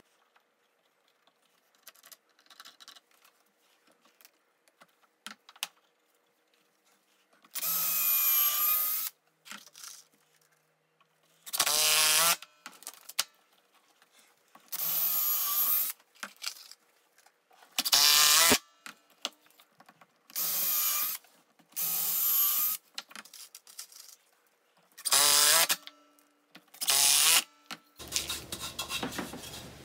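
Power drill run in about eight short bursts of a second or so each, its motor whine rising and falling, working into wood. Light handling clicks come between the bursts.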